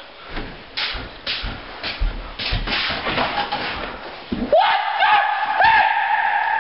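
Knocks and rustling from movement and camera handling. About four and a half seconds in, a person's voice starts a high, long-held note on one pitch, broken by short rising swoops, like a drawn-out wail.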